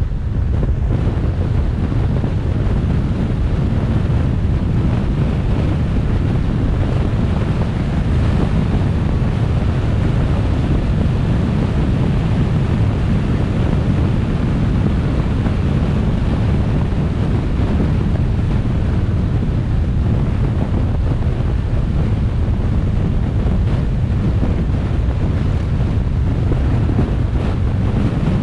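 Steady wind and road noise from a car driving at speed, an even, low-heavy rush with no separate events.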